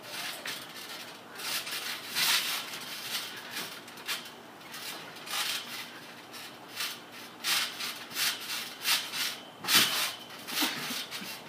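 Scuffling and rustling of bodies, clothes and feet on a trampoline mat during wrestling, in irregular bursts, with one heavier thump on the mat near the end.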